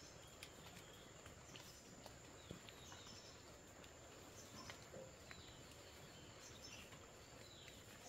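Quiet forest ambience: a faint steady high insect hum, a few short bird chirps, and soft clicks and rustles of footsteps through the undergrowth.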